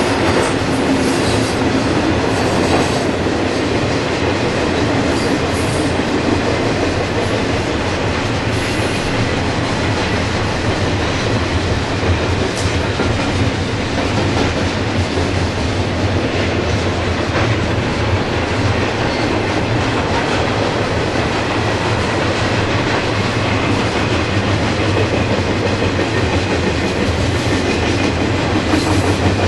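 Freight cars rolling past: a steady rumble of steel wheels on rail, with clicking as the wheels cross rail joints.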